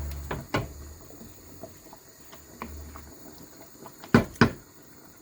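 Kitchen handling sounds: a few light clicks and knocks, then two sharp knocks close together about four seconds in, over a low hum in the first few seconds.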